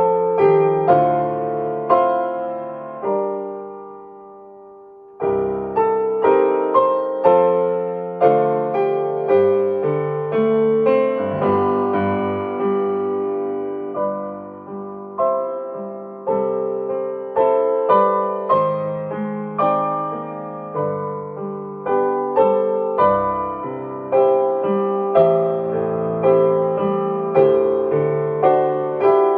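Solo piano playing a slow, gentle piece of chords and melody, arranged to evoke ringing bells. About three seconds in, a chord is left to ring and die away before the playing resumes.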